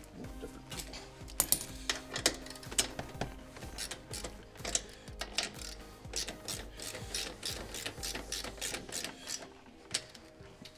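Hand ratchet clicking in quick, irregular runs as it tightens the mounting bolts of a plastic kick-panel speaker pod, thinning out near the end.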